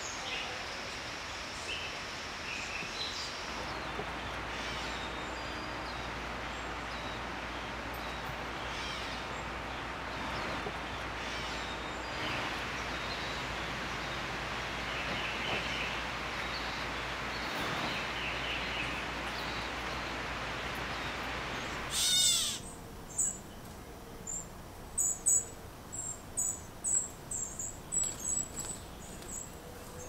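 Fledgling songbirds calling in woodland over a steady background hiss of other birds. About two-thirds of the way through, the background drops and a young bird gives a run of loud, high, short calls, about two a second.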